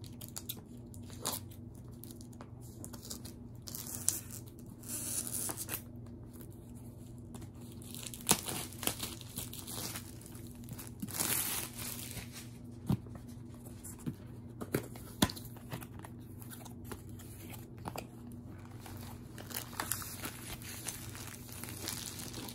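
Opening a long cardboard kit box by hand: tape being slit and torn, cardboard scraping, and plastic wrap crinkling, broken by scattered sharp taps and knocks as the box is handled and the rolled canvas is pulled out.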